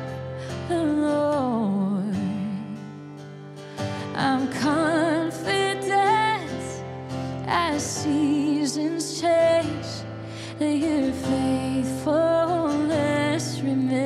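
Woman singing a slow worship song, holding notes with vibrato, to her own strummed acoustic guitar.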